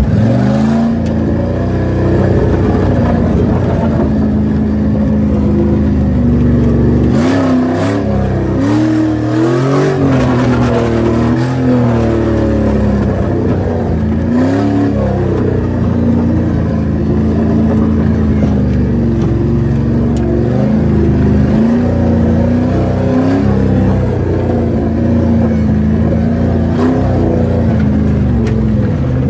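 Jeep Grand Cherokee's 4.7-litre V8 heard from inside the cabin while it is driven off-road, revving up and dropping back over and over. A few knocks come in around the first third.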